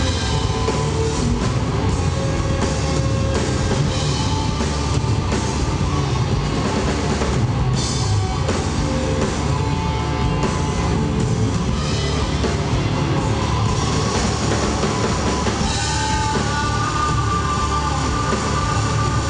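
Rock band playing live, loud and dense: amplified electric guitars over a drum kit. About three-quarters of the way through, sustained guitar notes begin to ring out over the band.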